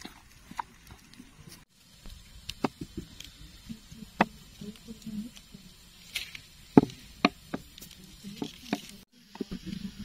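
Cutlery and dishes clicking and tapping irregularly at a meal, with a few sharper clinks, the loudest about two thirds of the way in.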